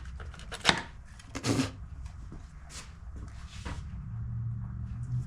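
A few separate clicks and knocks of parts being handled, then about four seconds in a small oil extractor pump starts a steady low hum as it sucks oil out of the mower's engine.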